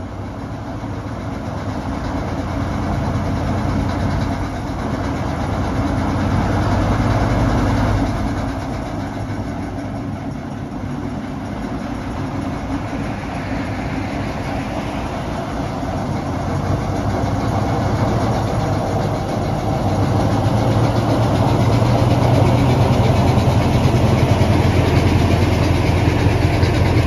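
British Rail Class 03 diesel shunter's Gardner eight-cylinder engine working hard as it pulls away with a train of coaches. It grows louder as the locomotive draws near and passes close by. The engine note eases about eight seconds in, then builds again.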